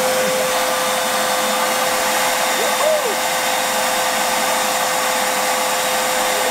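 Wet/dry shop vacuum running steadily, a steady motor whine over a loud rush of air, as its hose sucks live bees off a statue into the canister. The pitch briefly rises and falls about three seconds in.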